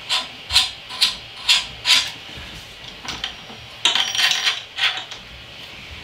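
Ender 3 print bed pushed back and forth by hand along its Y axis, its stepper motors disengaged: a run of about five short rattling strokes, about two a second, then a quicker cluster of them near the end. The bed is being swept under the nozzle to check that it clears without scraping.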